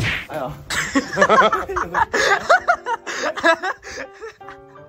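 A sudden startled yell, then several teenage boys laughing hard and loudly for a few seconds, dying down near the end.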